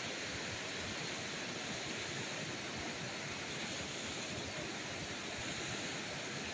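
Small waterfall's water rushing steadily into its pool.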